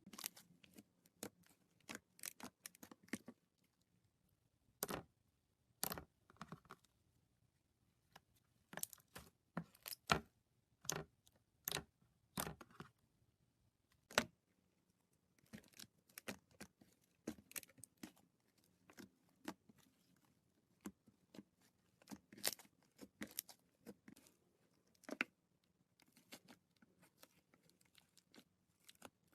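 Slime being worked by hand, giving irregular sharp clicks and pops, some single and some in quick clusters, with short pauses between.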